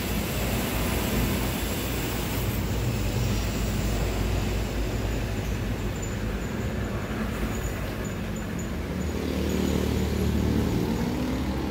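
Steady rumble of passing road traffic and vehicle engines, with one engine growing louder in the last few seconds.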